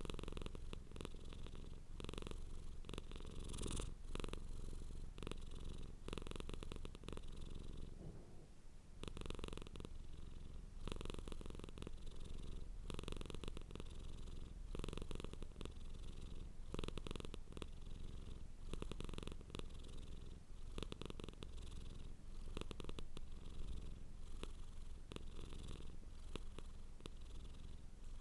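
Domestic cat purring close up, a steady low rumble that swells with each breath in and out, in a regular rhythm of roughly one to two seconds per swell, with a short pause about eight seconds in.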